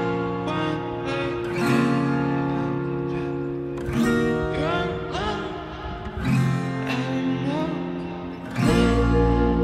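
Background music led by plucked guitar notes, some sliding in pitch, with a deep bass coming in near the end.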